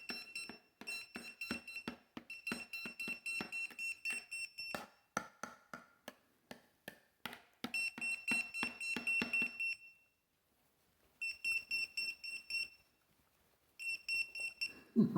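Electronic buzzer beeping in rapid bursts of about five high-pitched beeps a second, broken by short pauses and a silent stretch about ten seconds in. A low thump sounds at the very end.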